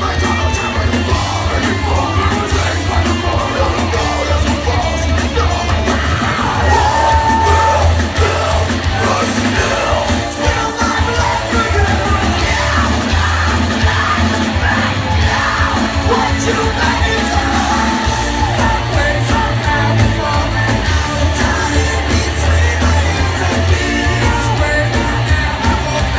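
Live post-hardcore rock band playing loud: distorted electric guitars, bass and pounding drums under a singer's yelled and sung vocals, heard from within the crowd.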